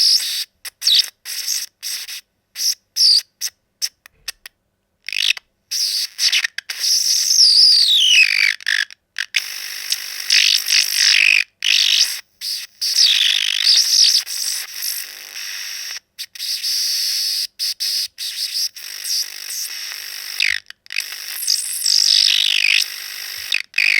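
TV interference glitch sound effect: stuttering electronic hiss and squealing tones that sweep down in pitch, chopped by many sudden dropouts to silence.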